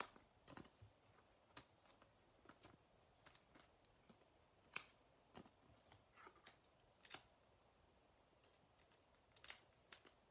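Faint, irregular clicks and taps of trading cards being handled, gathered and set down on a table mat.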